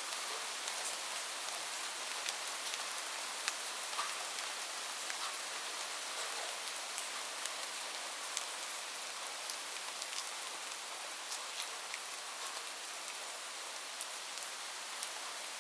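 Light rain falling steadily, a soft hiss with many scattered individual drops ticking on a surface.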